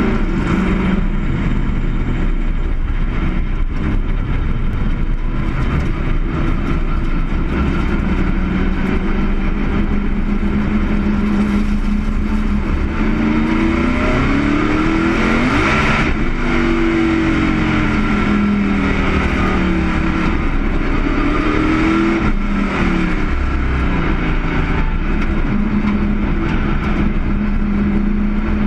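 Stock-car racing engine heard from inside the cockpit, running at low speed before the green flag. The revs rise and fall several times around the middle.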